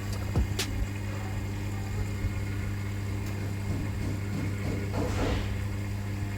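Electrolux front-loading washing machine running with a steady electric hum, with a couple of light clicks near the start and a brief rush of noise about five seconds in.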